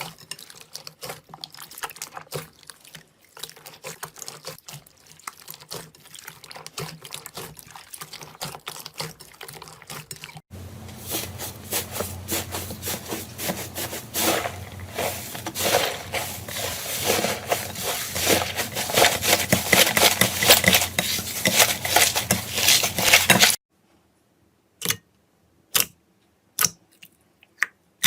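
Slime squeezed and worked by hand: dense wet crackling and popping that grows louder and thicker about ten seconds in. It stops abruptly near the end, leaving a few separate sharp clicks with silence between them.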